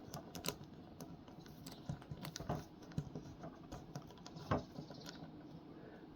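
Scattered small clicks and taps of a plastic action figure being handled and its jointed limbs moved into a pose, with one louder click about halfway through.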